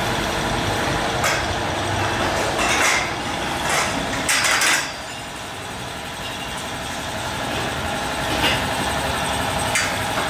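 A steady low mechanical rumble, with brief hissing noises about three seconds and four and a half seconds in; the rumble drops off somewhat after about five seconds.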